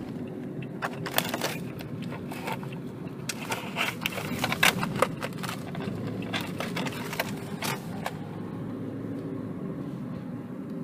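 Clear plastic blister tray crinkling and clicking as it is handled, a run of sharp crackles that stops about eight seconds in, over the steady low hum of a car.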